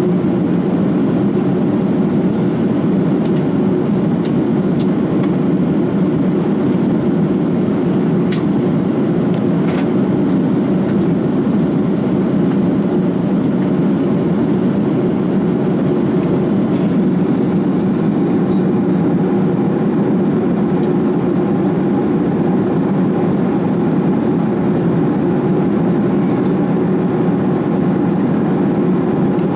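Steady cabin noise of an Airbus A340-600 airliner in flight: an even, unbroken roar of engines and airflow, heaviest in the low-mid range.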